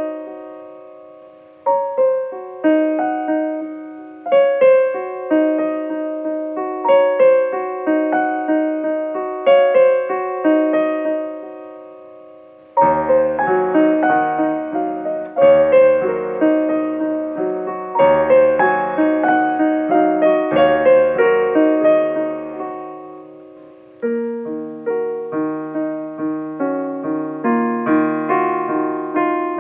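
Instrumental piano music with no singing: repeating patterns of struck notes, each dying away, with deep bass notes coming in about halfway through and a new, busier figure near the end.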